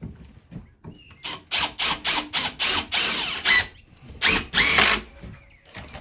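Handheld power drill run in a quick series of short trigger bursts, its motor whine rising and falling with each one, then two more bursts after a brief pause.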